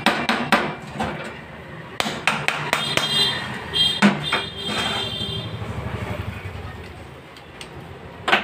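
Hammer blows on a Hero Honda Splendor NXG engine's crankcase: a quick run of knocks at the start and again about two seconds in, a heavier knock about four seconds in, and one more near the end. Metal parts clink and ring in between.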